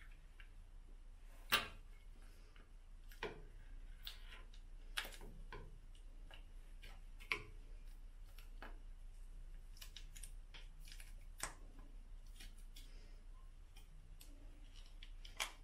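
Sparse light clicks and taps, about eight in all, the sharpest about a second and a half in, as a tube of hair-dye colour cream is handled and squeezed out into a plastic mixing bowl. A faint low hum runs underneath.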